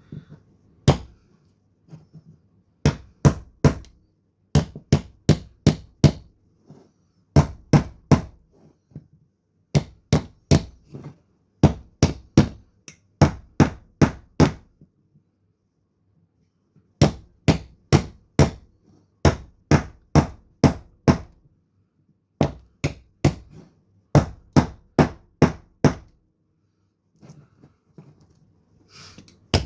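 Repeated sharp strikes driving a knife blade down into a log to split off kindling (batoning). The blows come in runs of three to five, a few a second, with short pauses between runs and a longer one midway.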